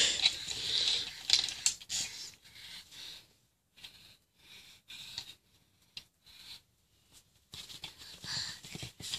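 A man's hushed, breathy laughter, strong for the first two seconds or so and dying away by about three seconds in. Soft breathy sounds come back near the end.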